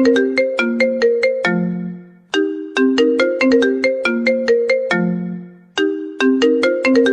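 Mobile phone ringtone: a short, bright melody of quick struck notes that loops, starting the same phrase again about every three and a half seconds with a brief dip in between.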